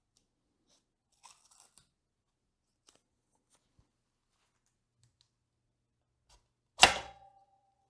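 Faint rustling of handled parts or packaging, then near the end a single sharp metallic clank with a short ring that dies away, as a metal part or tool is set down hard on a hard surface.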